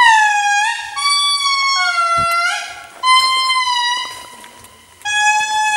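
Indri lemurs singing: a series of loud, long pitched notes, about one a second, some sliding down and some held steady, with voices overlapping at times.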